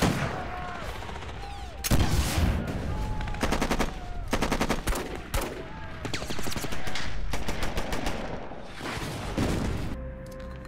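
Battle gunfire: single rifle shots mixed with rapid machine-gun bursts, with short whining glides between the shots. Near the end the firing thins out and a steady low hum is left.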